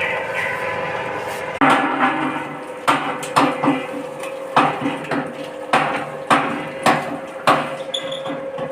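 Corn emping flattening machine running with a steady hum. From about a second and a half in, it is joined by a string of sharp knocks, about ten of them, irregularly spaced roughly half a second apart.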